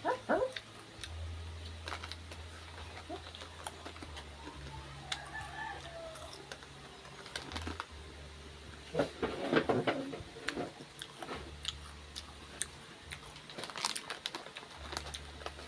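Scattered small clicks and rustles, with a rooster crowing in the background about nine seconds in.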